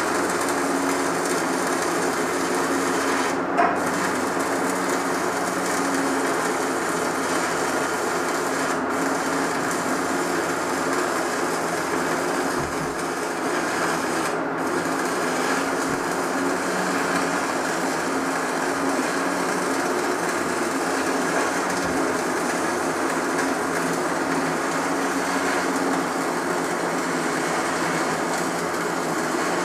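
Stick-welding arc from a Tweco Fabricator 141i burning a 3/32-inch Lincoln Electric 6013 electrode, running steadily without a break as a bead is laid along the edge of a scrap plate.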